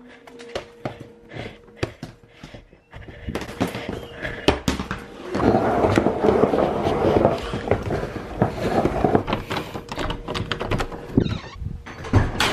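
A rolling suitcase handled and wheeled over a tiled floor: knocks and a clattering rattle, which gets denser and louder about three seconds in.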